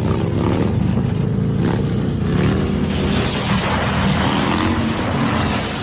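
Heavy cruiser motorcycle engine running under throttle while the bike is ridden on its back wheel, with a rushing noise of road and wind that swells about halfway through.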